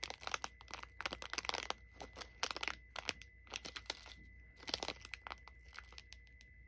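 Irregular crinkling and crunching, a dense run of sharp crackles, as of something crumpled or handled, with a faint steady high-pitched tone behind it.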